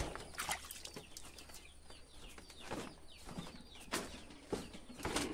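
Chickens clucking now and then: a few short calls, each falling in pitch, with faint clicks in between.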